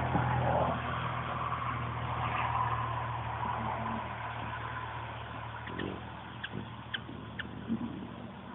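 A steady low engine drone that fades away over the first few seconds. From about six seconds in, a few short, high chirps from hummingbirds arriving at the feeder.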